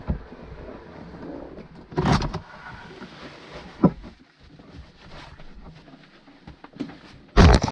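Snowboard gear and bags being handled in a car's open cargo area: rustling and light knocks, with a louder thump about two seconds in, a sharp click near the middle and the loudest thump near the end.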